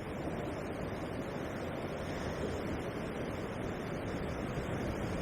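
Steady surf washing against the shoreline rocks, an even rushing noise that builds slightly toward the end, with wind buffeting the microphone.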